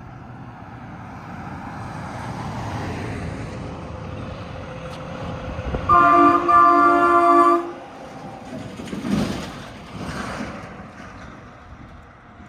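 A passing truck's train-style air horn blasts a loud multi-note chord about halfway through, a very short toot running straight into a blast of about a second and a half. Road noise from passing vehicles swells before and after it.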